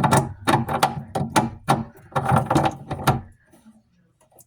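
Hand tool tightening the last of the sink's mounting fasteners: a run of quick mechanical clicking strokes, about three a second, that stops a little over three seconds in.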